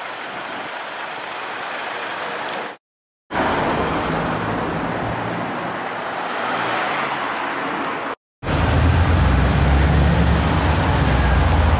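Street traffic noise, broken by two short silences. After the second, a Mansory G-Couture SUV's engine running deep and loud; this is the loudest sound.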